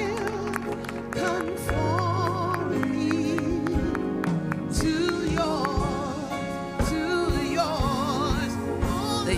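Gospel song: a singer holds notes with a wide vibrato over a band playing steady chords, with drum hits.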